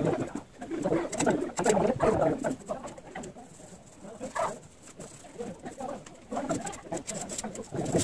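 Pigeons cooing repeatedly, with short scratchy taps mixed in.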